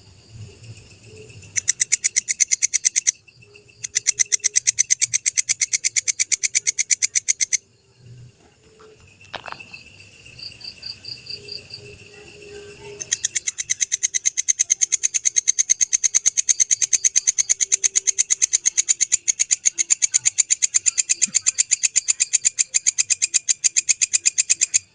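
Walang kecek (belalang kecek) insect calling in loud trains of rapid, sharp clicking pulses: a short run about a second and a half in, a longer one from about 4 to 7 seconds, and a long unbroken run from about 13 seconds to the end. Fainter, softer pulsing chirps fill the gaps between the runs.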